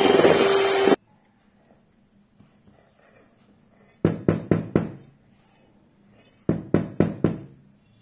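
An electric hand mixer's motor whirring with a steady hum, which cuts off abruptly about a second in. After a pause come two quick runs of about five sharp taps each: a spatula knocking flour off against a steel mixing bowl.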